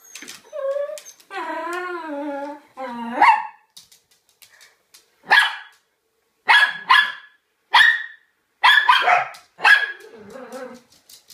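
Small dog whining in long wavering cries, then barking sharply about seven times, crying for the post left out of reach on the mantelpiece. Softer whines follow near the end.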